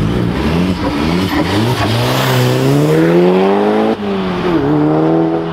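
Car engine revving hard as the car accelerates away, its pitch climbing steadily for about two seconds. After a sudden break about four seconds in, the engine note drops and rises again briefly.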